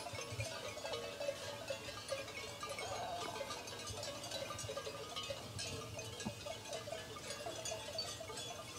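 Bells on a grazing flock of sheep clinking and jangling irregularly.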